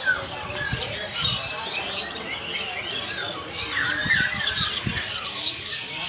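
A crowd of caged songbirds calling at once: many overlapping short chirps, squeaks and squawks, rising and falling, with no single bird standing out.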